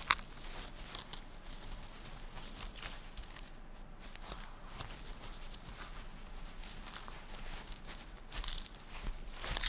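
Young Tasmanian devils scuffling and scratching in dry leaf litter and soil: scattered rustles and scrapes, with a sharp click right at the start and a louder flurry near the end.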